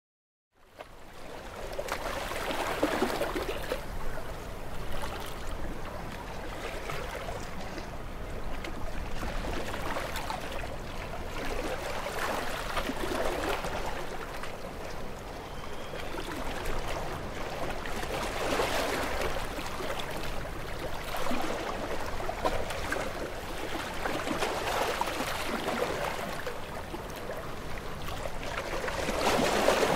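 Sea waves washing in and out among the concrete tetrapods and rocks of a breakwater, the water swelling and easing every few seconds.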